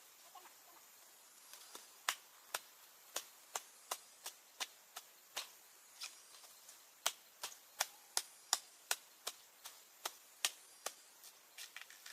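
Chopping with a blade: a run of sharp, uneven strikes, about two or three a second, starting about two seconds in.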